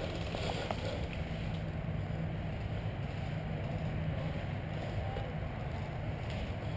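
Steady low rumble of wind and movement on a body-worn camera's microphone, with faint rustling of brush underfoot.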